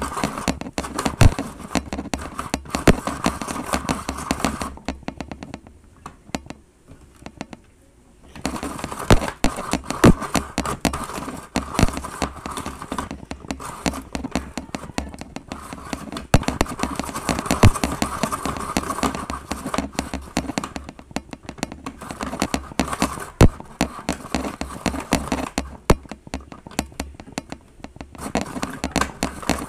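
Hand-cranked Snoopy toy snow cone maker shaving ice cubes: a fast rattling, clicking grind as the crank turns, stopping briefly a few times.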